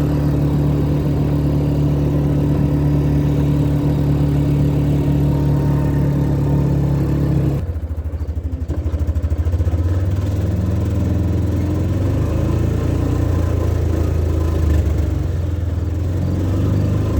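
Motor vehicle engine running steadily. About seven and a half seconds in, its note drops suddenly to a lower, steady rumble.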